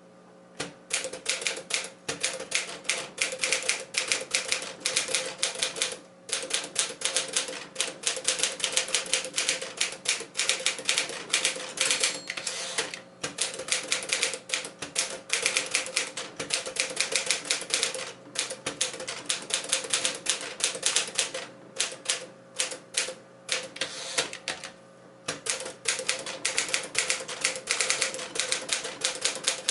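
1958 Smith-Corona 5A Sterling manual portable typewriter being typed on: quick runs of sharp key strikes, several a second, broken by short pauses every few seconds.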